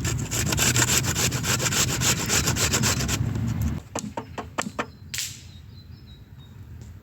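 Rapid rasping strokes, like potato being grated on a hand grater, stopping about three seconds in, followed by a few light clicks and one short scrape.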